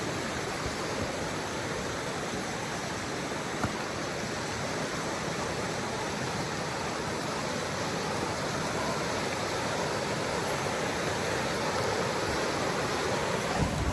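Creek water flowing over rocks, a steady rushing.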